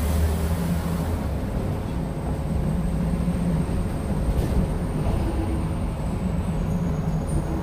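City bus running, heard from inside the passenger cabin: a steady low rumble of engine and road noise, with a hum that fades out and comes back.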